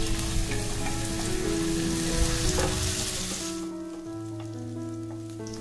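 Chopped garlic and green chillies sizzling in hot oil in a pan as they are stirred with a wooden spatula; the sizzle dies down after about three and a half seconds. Soft background music plays underneath.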